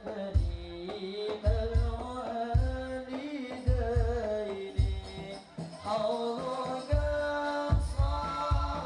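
Sholawat devotional singing praising the Prophet, sung by a group with drum accompaniment. A deep drum beat lands about once a second under the sung melody.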